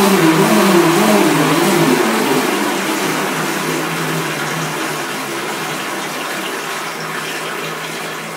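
The twin brushless motors of a converted toy RC speedboat run while the boat is tethered in a bathtub, its propeller churning the water. The motor hum wavers in pitch for the first couple of seconds, then settles lower, and the whole sound fades gradually as the boat slows.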